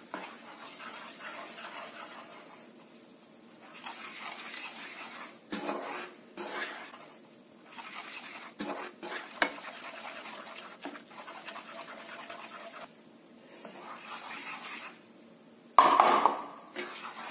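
A wooden spatula stirs and scrapes a thick mixture of milk and milk powder in a nonstick frying pan, with scattered clicks and knocks against the pan. Near the end there is a louder clatter as the plastic measuring cup is knocked against the spatula over the pan.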